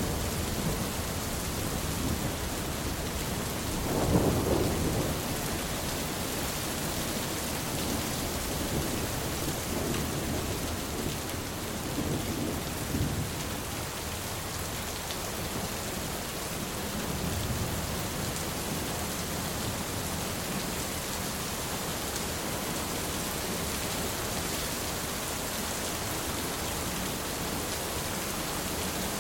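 Steady heavy rain hissing, with thunder rolling over it: a strong low rumble about four seconds in, and softer rumbles near the middle.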